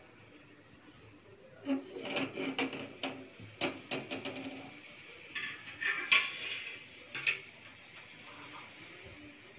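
Metal kitchen vessels and utensils clattering and clinking in a run of sharp knocks, some ringing briefly, from about two seconds in until about seven seconds in.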